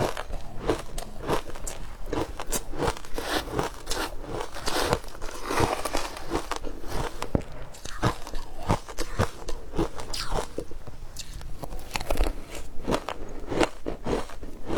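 Frozen matcha ice being bitten and chewed close up: quick, irregular crunches, several a second, as the ice cracks between the teeth.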